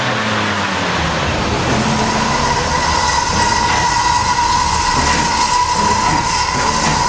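GWR 0-4-2 tank steam locomotive standing at the platform and letting off steam, with a steady high note held from about a second in over a rushing rumble.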